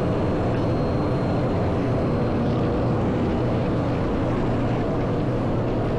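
Steady low rumble of wind rushing over the microphone on a moving ski lift, even in level throughout, with a faint thin high tone in the first couple of seconds.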